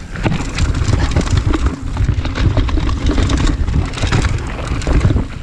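Mountain bike riding fast down a dirt forest trail: tyres rolling over dirt and stones and the bike rattling over bumps in many quick knocks, with wind rumbling on the chest-mounted camera's microphone.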